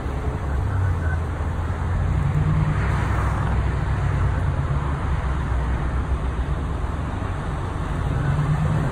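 Steady low rumble of idling vehicle engines and freeway traffic, swelling briefly about three seconds in as a vehicle passes.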